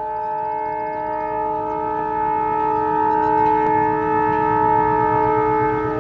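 ALCo WDM-3A diesel locomotive's air horn sounding one long, steady hoot that grows louder as the train approaches. Near the end the locomotive's diesel engine chugging comes up underneath as it accelerates.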